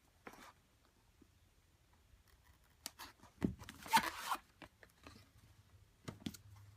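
Smartphone box packaging being handled and torn open: a few short rustling, scraping noises, the loudest cluster about three to four seconds in.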